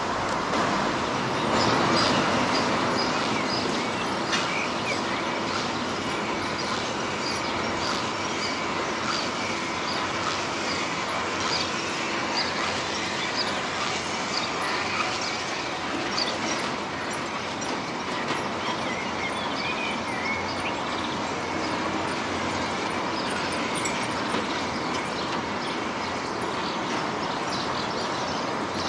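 Zoo cable car gondola running along its overhead cable: a steady mechanical hum and rumble with a faint constant whine, and short high bird chirps throughout.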